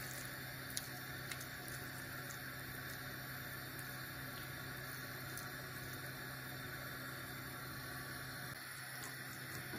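Faint steady background hiss with a low hum, and a couple of soft ticks about a second in.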